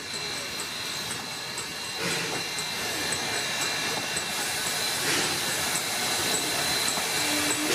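Steam locomotive No. 152 rolling slowly past, with steam hissing and a couple of louder gusts about two and five seconds in, the sound growing as it comes closer.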